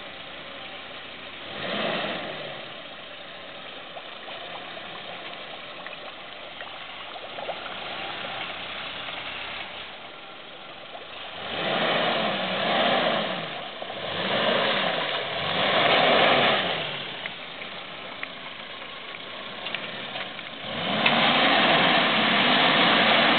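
Suzuki Jimny's engine pulling at low revs while crawling off-road, with a short blip about two seconds in. About halfway through it is revved up and back down three times in quick succession, and near the end it is held at higher revs, louder, as the vehicle climbs.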